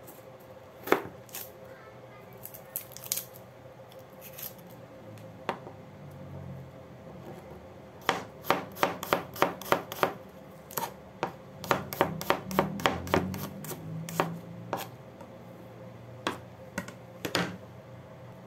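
Chef's knife slicing garlic cloves on a cutting board: sharp knocks of the blade on the board, a few scattered ones at first, then a quick run of about four cuts a second for several seconds in the middle, and a few more near the end.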